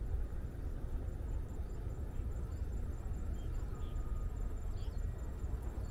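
Outdoor ambience on an open hilltop: wind buffeting the microphone as an uneven low rumble, with faint insects trilling steadily and a few short, faint chirps.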